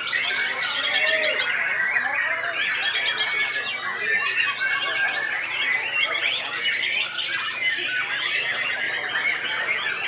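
White-rumped shama singing, rapid varied whistles and trills, layered in a dense chorus of other songbirds singing at the same time.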